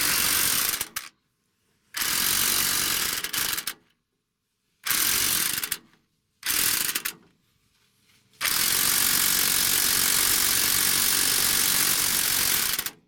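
Electric impact wrench hammering in five bursts through wobble and U-joint extensions on a rusted 18 mm caliper bracket bolt, the last burst about four seconds long. The gun is not strong enough to break the bolt loose.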